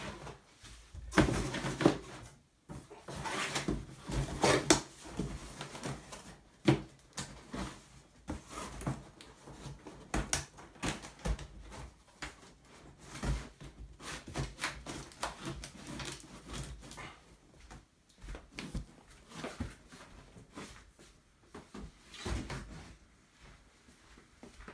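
Plastic packing bags and foam sheets rustling as they are pushed into a cardboard box, with scrapes and knocks of the cardboard as the box is closed and handled. The rustling and knocks come in irregular bursts, busiest in the first few seconds.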